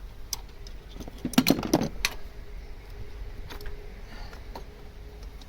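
Metal parts and hand tools clinking and rattling while an engine's fuel injection parts are being taken apart, with a quick cluster of clinks about a second and a half in and single clicks before and after.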